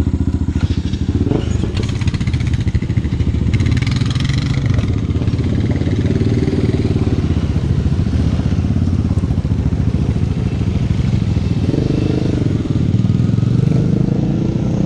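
A small off-road engine starts abruptly close by and runs loudly, with a fast, pulsing exhaust beat, and there is some revving.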